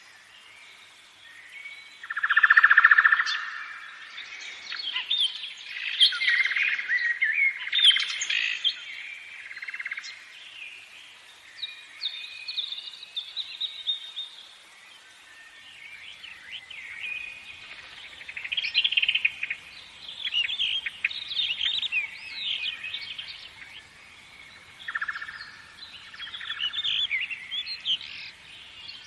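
A chorus of many birds chirping and singing, with overlapping short calls and trills throughout and a loud buzzy trill a couple of seconds in and again near the end.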